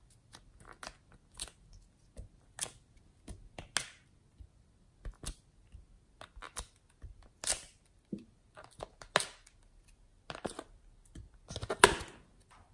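Soft modelling clay being pressed, pried and peeled out of a plastic palette tray and onto slime, giving an irregular string of small sticky clicks and pops, with a quick cluster of them near the end.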